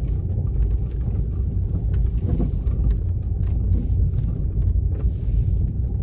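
A car driving slowly over brick and stone paving, heard from inside the cabin: a steady low rumble of engine and tyres.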